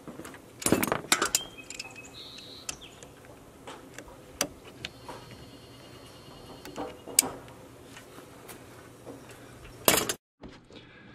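Metallic clinks and clicks of hand tools and fittings being handled in a truck's engine bay, with a cluster of louder clatter about a second in, single sharp clicks now and then, and another burst near the end.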